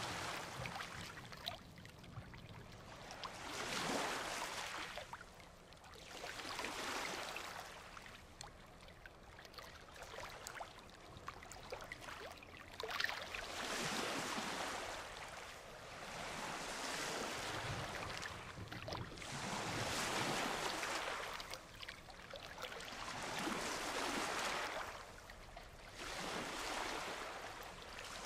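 Ocean surf: waves breaking and washing up the beach in a hissing wash that swells and fades about every three to four seconds.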